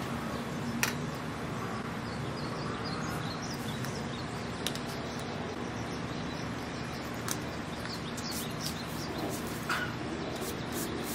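Steady outdoor ambience with a low hum, faint bird chirps and a few sharp clicks scattered through it.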